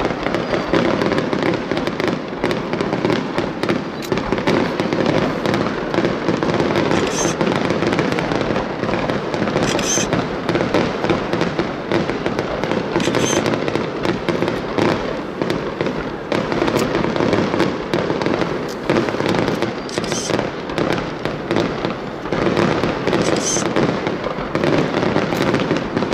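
Aerial fireworks display: a dense, continuous barrage of bangs and crackling from bursting shells and rising trails, with a short high-pitched sound every few seconds.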